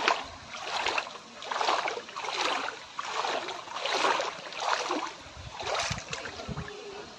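Muddy floodwater sloshing and splashing in a steady rhythm, one swell of water noise roughly every second, as someone moves through it.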